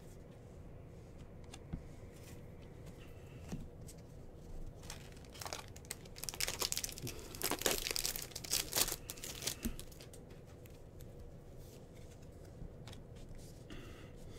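A Bowman baseball card pack's wrapper being torn open and crinkled. The tearing and crinkling comes as a dense cluster from about a third of the way in to about two thirds, with light handling noises before and after.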